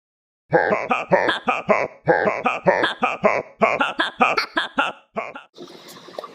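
A man snoring through loose, fluttering lips: runs of quick puffing flaps, about three or four a second, broken by short pauses, stopping about five seconds in and leaving a faint hiss.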